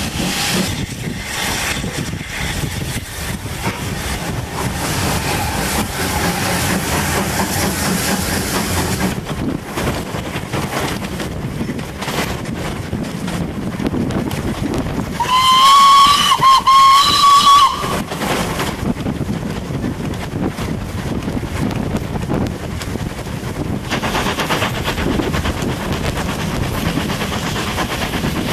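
Steam locomotive whistle, one blast of about two and a half seconds about halfway through, over the steady running noise of the train heard from an open carriage window.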